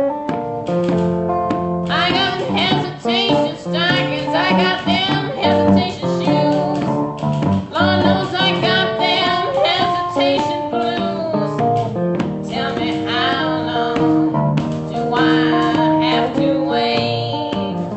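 A woman singing a blues song over acoustic guitar. For about the first two seconds the guitar plays alone, then the voice comes in with a strong, wavering vibrato and carries on through the rest.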